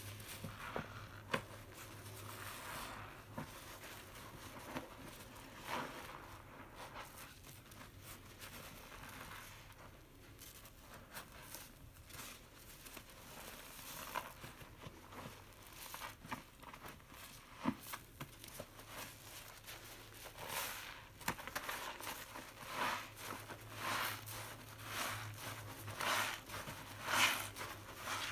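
Long foam sponge soaked with dish-soap lather being squeezed and kneaded by hand in soapy water: wet squelching with a fine crackle of popping foam bubbles. Near the end the squeezes come stronger, about once a second.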